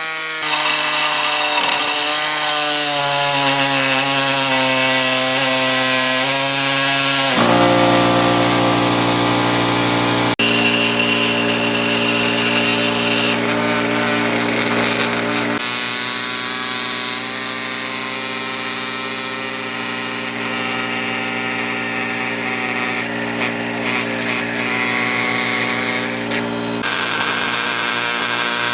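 An electric power tool cutting a bracket out of metal flat stock, running continuously. Its motor whine shifts in pitch a few times.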